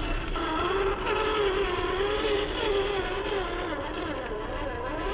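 Electric drive motor and gears of a 1/18 Kyosho Mini-Z 4x4 Suzuki Jimny Sierra RC crawler whining, the pitch rising and falling repeatedly.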